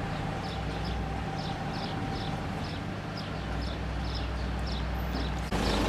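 A small bird chirping over and over, short falling chirps about twice a second, over a steady low rumble.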